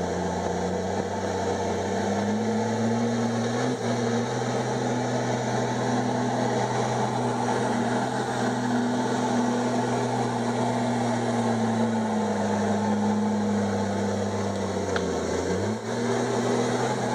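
Komatsu D51EX bulldozer's diesel engine running steadily under work. Its pitch sags and recovers about a second in, and sags again near the end before picking back up.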